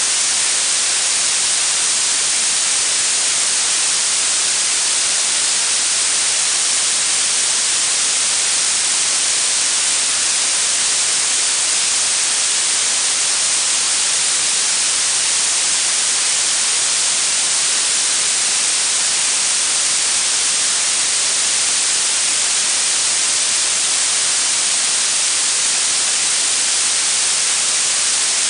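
Synthetic blue noise: a steady, even hiss weighted toward the high end, with little low end.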